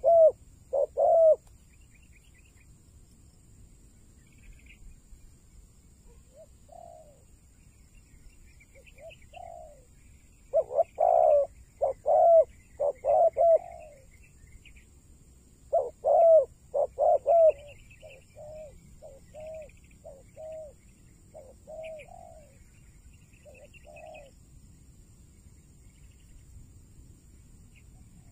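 Spotted doves cooing in repeated phrases, a few loud groups of coos with softer, spaced coos between them. Faint chirps of small birds and a steady faint high tone sit underneath.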